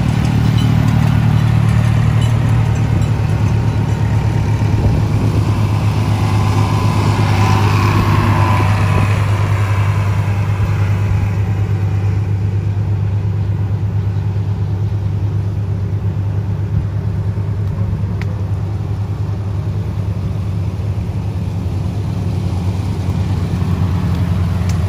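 Antique farm tractor engines running slowly as a line of tractors passes, a steady low engine drone that swells for a few seconds about a third of the way in.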